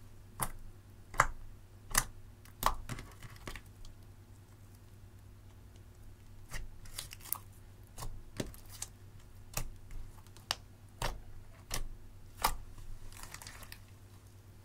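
Clear glitter slime being pressed and folded by hand, giving sharp sticky clicks and pops, about a dozen at uneven intervals, with a quieter pause about four seconds in and a soft crackle near the end.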